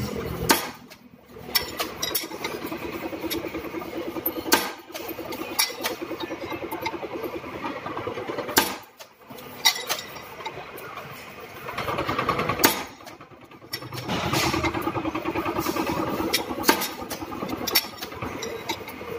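Two-post hydraulic press bending steel plates into L brackets: the hydraulic pump runs with a fast rattling drone that drops away briefly three times, and sharp metal clanks come every few seconds as the ram strikes and the plates are handled.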